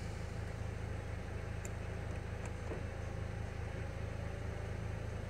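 Peugeot Partner's 1.6 HDi diesel engine idling steadily, still cold a short while after a cold start, heard from inside the cab as a low, even hum.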